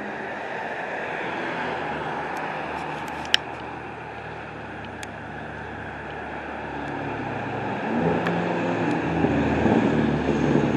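Outdoor street traffic noise, with a motor vehicle's engine growing louder from about eight seconds in as it approaches. A single sharp click a little after three seconds.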